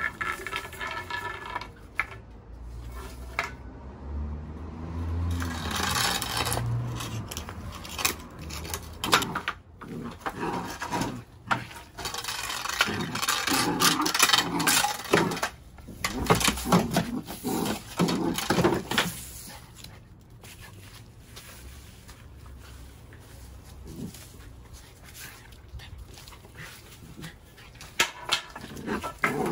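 Push-broom bristles scraping and knocking on a concrete patio as a mini labradoodle puppy bites and tugs at the broom, in uneven bursts that are busiest in the first two-thirds and quieter near the end.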